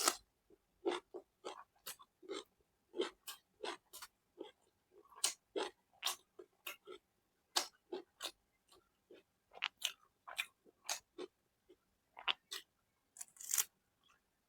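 Close-miked eating sounds: chewing with short, wet mouth smacks, about two a second, from a person eating egg bhurji, pav and fish curry.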